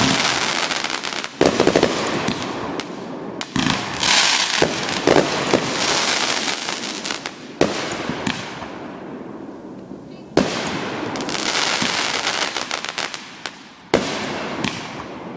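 Fireworks going off in a home display: a sharp bang every few seconds, each followed by a long crackling hiss that fades away.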